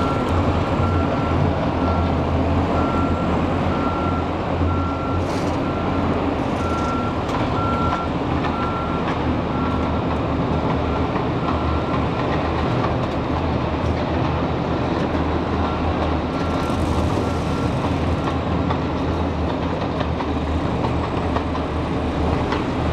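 Forklift engine running steadily under a reversing alarm that beeps in an even rhythm, a little faster than once a second; the beeping fades out near the end while the engine keeps running.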